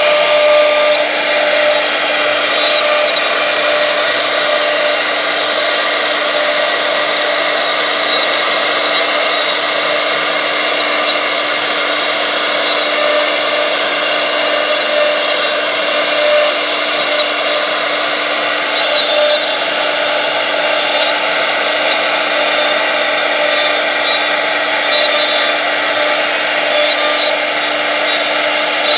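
CNC router spindle running at high speed while its tapered carving bit cuts a relief into a wooden panel: a steady pitched whine over the hiss of the cutting, unchanging throughout.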